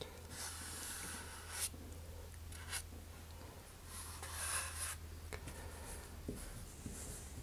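Fingertips rubbing along a model rocket's paper body tube at the base of a freshly glued tail fin, wiping off excess glue. It comes as a few faint brushing strokes; the longest are at the start and about four seconds in.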